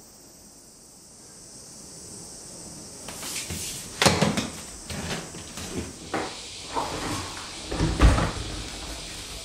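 A run of wooden knocks and clunks as someone pushes up out of a wood-framed folding chair, the first loud knock about four seconds in. Near the end comes a heavier thump as a wooden closet door is shut.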